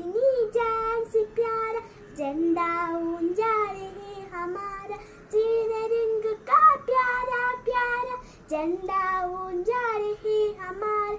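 A young girl singing solo without accompaniment, in phrases of long held notes with short breaks between them.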